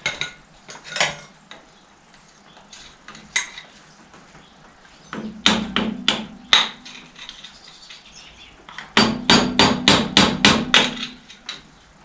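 Hammer blows on the steel parts of a Fordson Major tractor's clutch and brake pedal assembly as it is knocked apart. There are a few scattered strikes, then a cluster about halfway through, then a quick run of about eight blows near the end.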